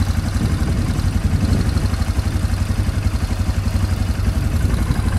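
Quad bike (ATV) engine running steadily while being ridden over sand, with a rough rushing noise over it.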